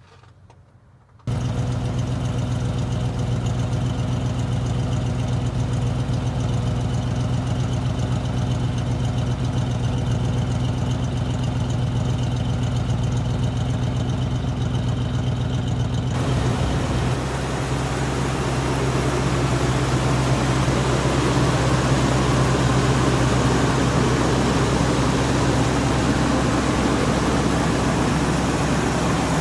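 1979 Chevrolet K10 pickup's engine idling steadily. It comes in suddenly about a second in, and about halfway through it gets fuller, with more hiss and a slight shift in pitch.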